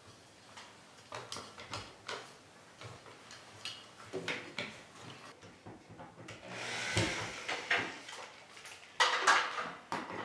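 Small clicks and knocks of wires and wire nuts being pushed into a plastic ceiling box and the lampholder being set against it. Then a cordless drill drives the lampholder's mounting screws in two runs, about six and nine seconds in.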